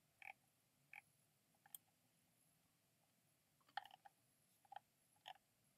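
Near silence with about eight faint, short clicks scattered through it, two of them close together about four seconds in.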